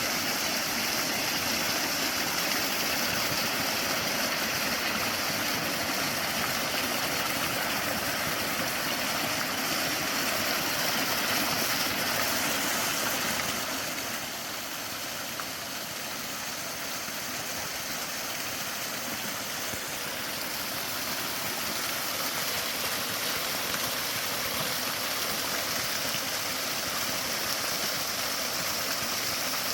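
Waterfall: a steady rush of falling water, a little quieter for several seconds about halfway through.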